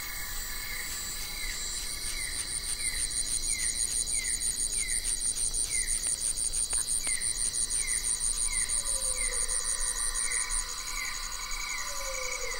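Chorus of calling insects: a rapid, pulsing high trill over steady high buzzing, with a short falling chirp repeating about twice a second. A lower falling call sounds twice in the second half.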